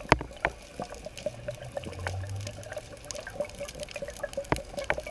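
Underwater sound picked up by a dive camera: irregular sharp clicks and crackles over a faint steady hum, with a low drone for a second or so partway through.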